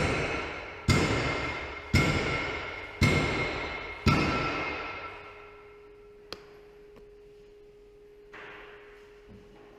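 Five ringing strikes about once a second, each dying away slowly. After the last fades, a faint steady hum and a single click remain.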